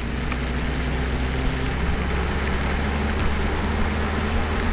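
Stock Chevrolet Colorado ZR2's 2.8-litre Duramax four-cylinder turbodiesel cruising at town speed, picked up by a microphone beside the stock exhaust: a steady low engine drone under a rushing hiss of tyre and wind noise.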